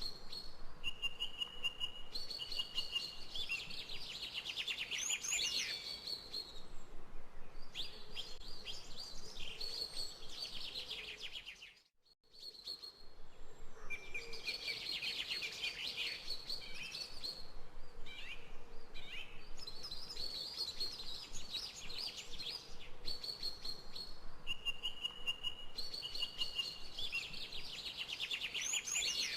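Several birds singing and chirping at once, with rapid trills and repeated high notes. About twelve seconds in the sound fades out briefly and comes back.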